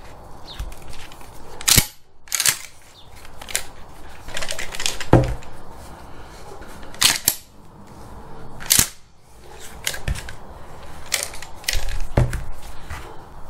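A Remington 870 12-gauge pump shotgun being unloaded one shell at a time: a string of sharp metallic clacks from its action and the ejected shells, a second or two apart, with handling noise between.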